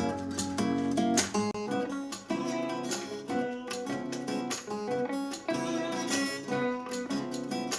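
Guitar-led music, mostly plucked and strummed acoustic guitar with quick notes throughout, played back through a small Anker Bluetooth speaker for a sound test.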